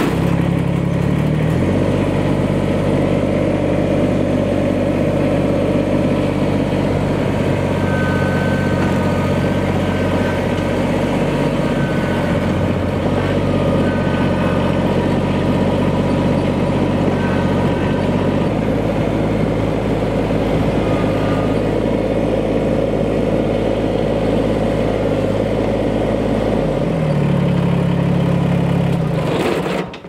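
Kubota sub-compact tractor's diesel engine running. It starts at idle, is throttled up about a second and a half in and run steadily while driving, drops back to idle near the end, and is switched off at the very end.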